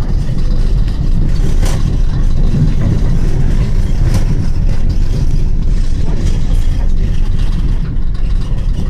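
Tyne and Wear Metro train running on the track, heard from inside the car: a loud, steady low rumble of wheels and motors. Two sharp clicks come about two seconds in and about four seconds in as the wheels pass over rail joints or pointwork.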